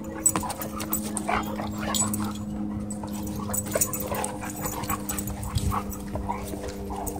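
A German Shepherd and a German Shorthaired Pointer play-fighting, growling and vocalising in short, irregular bursts with scuffling between. A steady low hum runs underneath.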